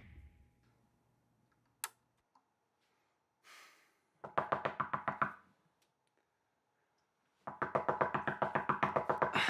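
Rapid, insistent knocking on a door in two bouts: a short one about four seconds in and a longer one starting past the halfway mark, about eight knocks a second. Acoustic guitar music fades out at the very start.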